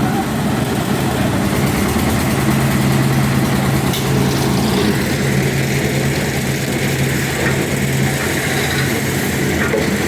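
Concrete mixer engine running steadily at an even speed, with a low, constant hum.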